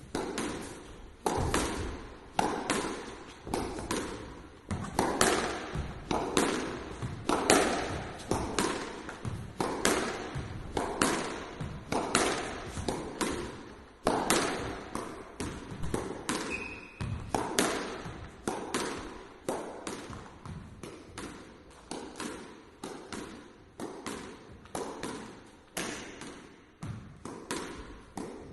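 A squash ball struck over and over in a solo rally, each racket hit and front-wall rebound a sharp knock ringing out in the court, two to three a second without a break. A short high squeak sounds about halfway through.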